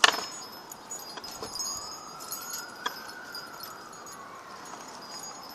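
Light metallic tinkling of small chiming tones, with a sharp knock at the start and a faint tone that rises slowly and falls away underneath.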